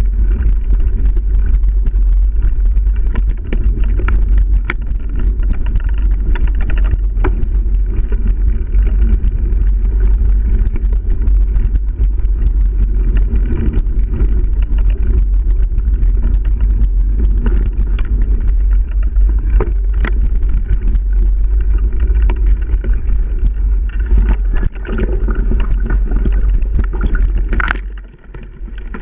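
Mountain bike ridden fast over a bumpy dirt trail, heard from a GoPro riding with it: a steady rumble of wind on the microphone, with the rattle and knocks of the bike over roots and ruts. Near the end the noise drops suddenly as the bike slows among overhanging branches.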